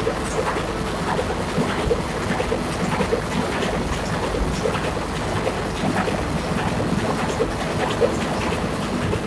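Steady drone of a running marine diesel generator filling a ship's engine room, a low rumble with a constant patter of small mechanical ticks and clatter.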